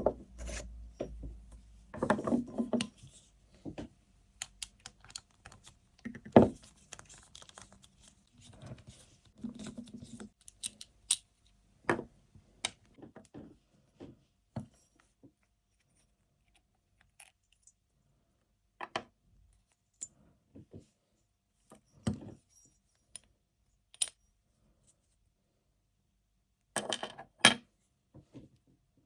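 Small metal parts and hand tools clicking, tapping and scraping at irregular intervals as a motorcycle fuel petcock is worked on, with quiet gaps between and a brief cluster of clatter near the end.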